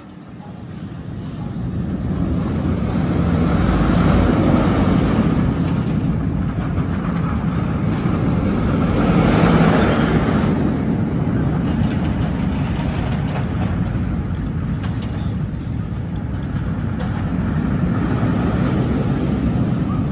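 Vekoma suspended looping coaster train running through its track overhead: the steady rolling noise of its wheels on the steel rails. It builds over the first few seconds, is loudest about four and again about nine seconds in, and carries on throughout.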